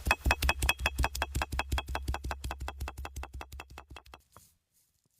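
Background music with the vocals gone: a fast, even clicking beat over a steady bass tone, fading out and ending about a second before the end.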